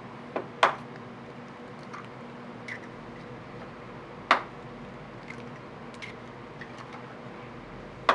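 Kitchen cooking sounds: a steady hiss with a few sharp clacks of utensils, two close together about half a second in, one a little past four seconds and one at the end, plus faint ticks.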